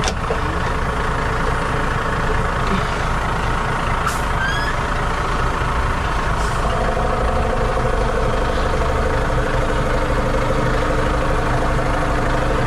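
Heavy truck's diesel engine idling steadily, with a few brief clicks, around four and six and a half seconds in, as the coiled air lines and couplings are handled.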